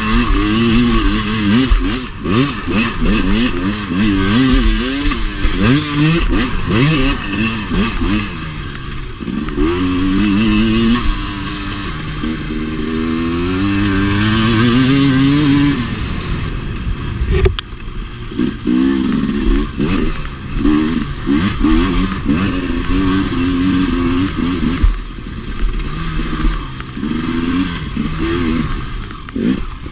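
2017 KTM 250 XC-W two-stroke dirt bike engine revving, its pitch rising and falling constantly as the throttle opens and closes, with one longer climb about midway. Clatter and knocks from the bike on rough ground run through it.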